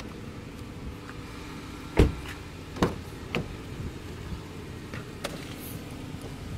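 Car door being worked: a heavy door clunk about two seconds in, then a few lighter clicks and knocks, over the steady hum of the running car.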